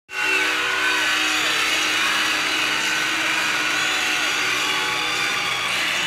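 Hockey goal horn sounding a loud, steady chord, with a dense rushing noise behind it. It comes in abruptly and holds at an even level.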